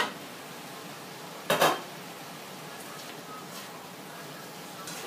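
A pan's glass lid clinks sharply as it is lifted off a frying pan, then clatters twice, louder, about a second and a half in as it is set down. A few light taps follow as a spatula goes into the pan of cabbage.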